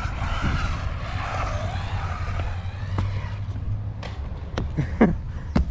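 Small electric motor of an Arrma Typhon Grom RC buggy whining, rising and falling in pitch with the throttle, over a low rumble. Near the end come several sharp clicks and knocks.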